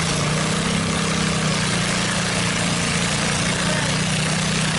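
Modified lawn tractor's engine running steadily at a constant pitch, with heavy noise over it.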